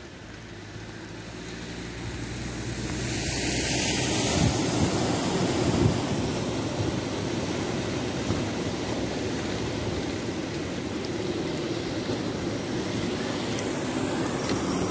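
Cars driving through deep floodwater, their tyres pushing up a steady rushing wash of water. The rush builds over the first few seconds and swells again near the end as another car comes close.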